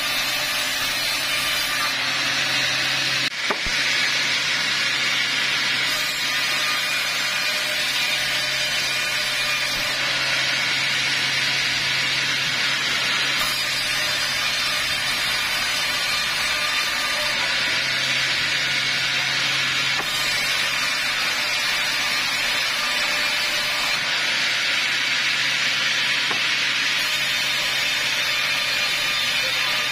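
Large vertical band saw cutting lengthwise through a teak log: a steady rasping hiss of the blade in the wood over the machine's steady low hum.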